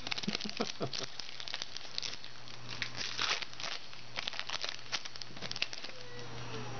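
Foil trading-card pack wrapper being torn open and crinkled by hand, a run of irregular crackles.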